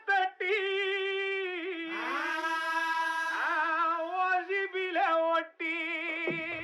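Background song intro: a solo singing voice holding long, wavering notes over a steady sustained tone, with no beat. A rising swell comes in about two seconds in.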